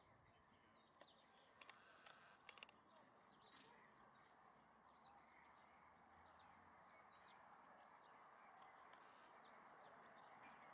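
Near silence: faint outdoor ambience with scattered small bird chirps, and a few faint clicks about two seconds in.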